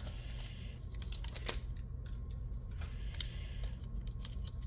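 Scattered light clicks and rustles of small plastic blind-capsule packaging being handled and picked at.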